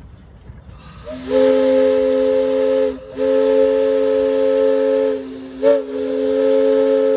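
Whistle of a small steam locomotive sounding several notes at once, in four blasts: long, long, short, long. This is the pattern of a grade-crossing whistle signal.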